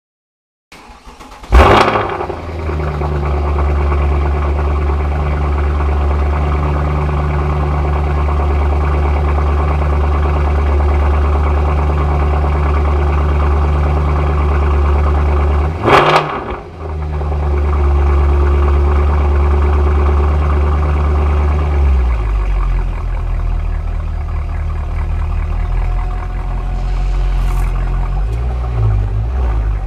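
Mercedes-Benz CL63 AMG's naturally aspirated AMG V8 on its stock exhaust starting with a loud flare, then idling steadily. One sharp throttle blip comes about halfway through, and the idle steps down to a lower note about two-thirds of the way in.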